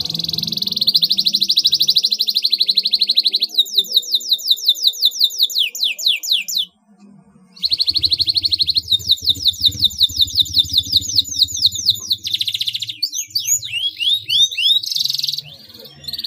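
Domestic canary singing a long song of very fast trills and rapid runs of downward-sweeping notes, about seven a second. The song breaks off for about a second midway, then goes on into more trills and varied swooping notes near the end.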